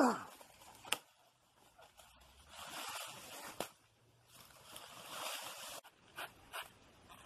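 A blade chopping into a banana plant's stem: four sharp chops, two of them close together near the end, with rustling of dry banana leaves and stem sheaths between them. A brief falling swish opens it, the loudest sound here.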